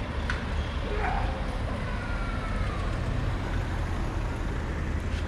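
Street ambience with a steady low rumble of traffic, as a small white delivery van drives past close by.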